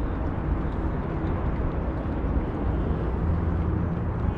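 Outdoor city ambience: a steady low rumble of background noise with no distinct events.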